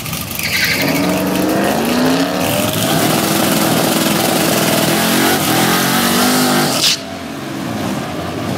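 Drag cars launching hard off the starting line, their engines revving up and pulling through several gear changes, each shift dropping the pitch before it climbs again. About seven seconds in the loud engine sound cuts off abruptly, and a quieter engine sound follows.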